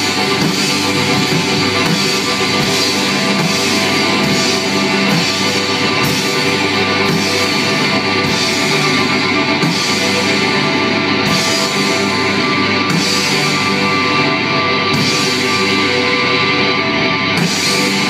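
Live rock band playing loudly: distorted electric guitars over a drum kit, with repeated cymbal crashes.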